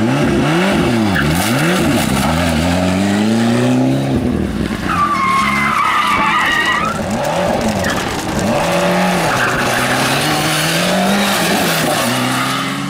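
Ford Escort Cosworth rally car's engine revving up and down hard as the car slides sideways through a tight bend, with tyres squealing from about five to seven seconds in.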